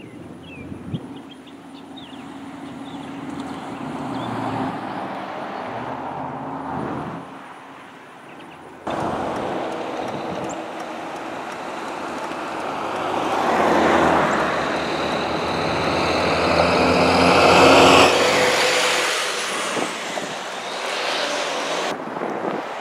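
Cars driving past on a highway, their tyre and engine noise swelling and fading with each pass. The noise jumps suddenly about a third of the way in, and a line of police patrol cars goes by, loudest near the end.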